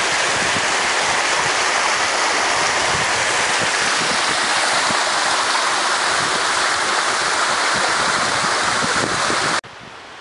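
Steady rush of water from a mountain stream among limestone boulders. It cuts off abruptly near the end, leaving a fainter steady hiss.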